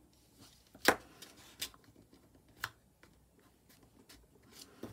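Square sheets of patterned craft paper being folded and creased by hand: a few sharp paper clicks and rustles, the loudest about a second in.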